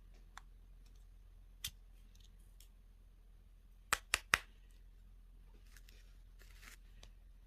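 Handling of candy and toy packaging: a few soft clicks, then three sharp clicks in quick succession about four seconds in, and a brief crinkle near the end.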